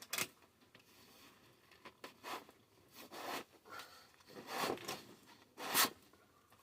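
HVAC ductwork being worked into place by hand: about five short scraping, rasping sounds a second or so apart, the loudest near the end.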